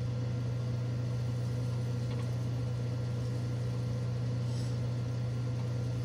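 Proctor Silex microwave oven running with a steady low hum while heating a bag of popcorn, the kernels not yet popping.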